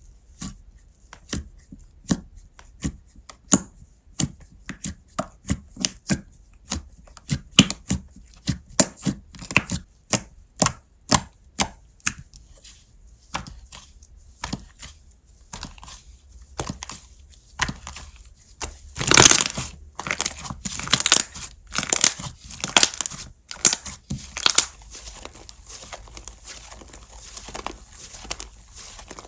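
Slime being worked by hand: a run of sharp, sticky pops and clicks, about two or three a second, then after a short lull louder crackly squishes about two-thirds of the way through.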